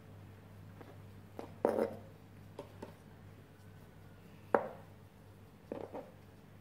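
Knife slicing soaked mushrooms on a plastic cutting board: a handful of irregular knocks of the blade on the board, the loudest about halfway through, over a steady low hum.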